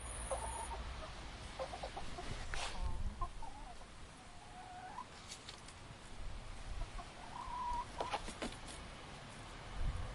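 Hens clucking: scattered short clucks and drawn-out calls, over a steady low rumble.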